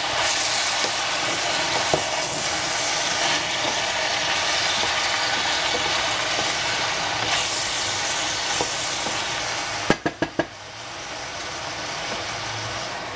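Chopped eggplant, squash and meat sizzling in a stainless steel saucepan over a gas flame as a wooden spatula stirs them. About ten seconds in come a few quick sharp knocks, and after them the sizzle is quieter.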